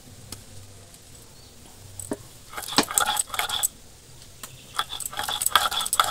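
A stone grinding roller is worked back and forth over soaked red lentils on a wooden board, scraping and knocking as the dal is ground to a coarse paste. Bangles on the grinder's wrists clink with each stroke. The strokes come in two spells, about three seconds in and again near the end.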